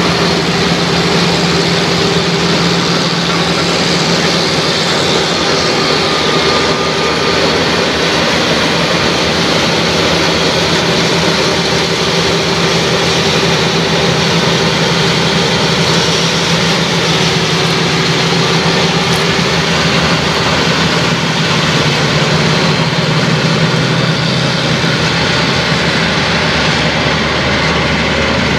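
Dronningborg 1250 combine harvester running steadily while harvesting grain. Its engine and threshing machinery make a constant drone with a broad rushing noise over it.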